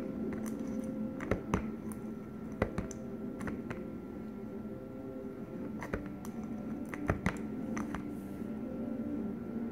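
Homemade slime being stirred and pressed by hand in a plastic tub: irregular sharp clicks and pops, a few close together, over a steady low hum.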